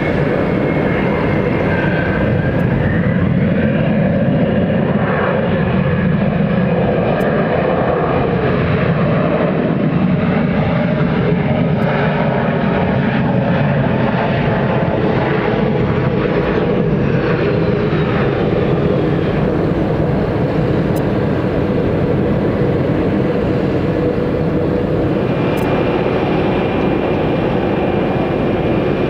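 A Boeing 717's twin rear-mounted jet engines running loud and steady on the runway, with thrust reversers deployed on the landing rollout; a faint whine falls in pitch about two-thirds of the way through. Near the end the sound changes to a steady hum with a high whine.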